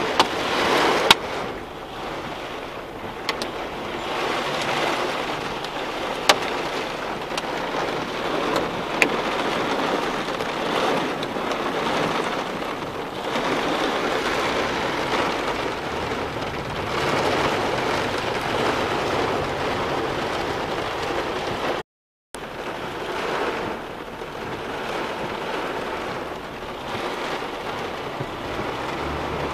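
Heavy thunderstorm rain pouring down, a dense rushing that swells and eases, with a few sharp ticks in the first ten seconds. The sound cuts out for a moment about two-thirds of the way through.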